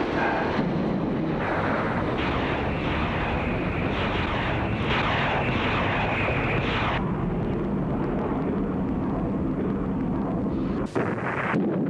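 Jet aircraft in flight, a steady rushing engine noise. The hiss of the noise thins out about seven seconds in, and there is a brief break near the end.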